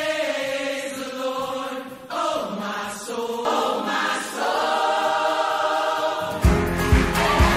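Christian music from a workout playlist: long-held sung vocals with no beat, then about six seconds in a new section comes in with heavy bass and drum hits.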